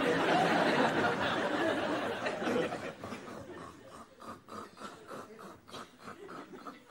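Studio audience laughing. The laughter is loudest at the start and dies away over about three seconds, leaving scattered chuckles.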